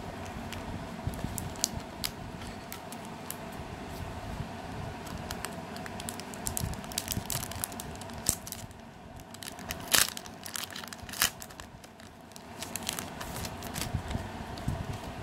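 Paper manuals and a plastic sheet in a drone's box rustling and crinkling as they are handled, with irregular small clicks; two sharper snaps about ten and eleven seconds in are the loudest.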